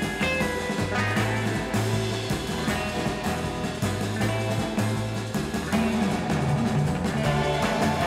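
Background rock music with guitar over a shifting bass line and a steady beat.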